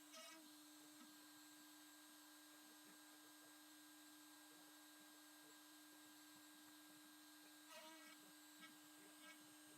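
Faint steady whine of a CNC router spindle carving a pine board, played back sped up. The pitch lifts briefly just after the start and again near the end.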